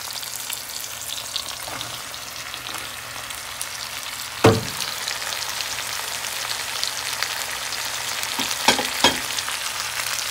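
Vegetables sizzling in hot oil in a wok as chopped bell peppers, onion and bok choy stems go in and are stirred with a wooden spoon. A sharp knock about four and a half seconds in is the loudest sound, and two more come close together near the end.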